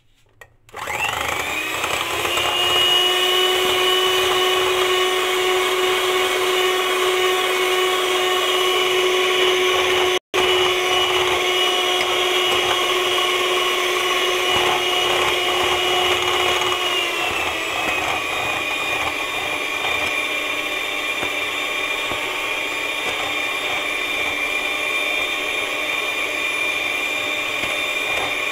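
Electric hand mixer starting up under a second in and running steadily, its metal beaters whipping heavy cream in a bowl. The steady whine cuts out for an instant about ten seconds in and drops slightly in pitch about seventeen seconds in.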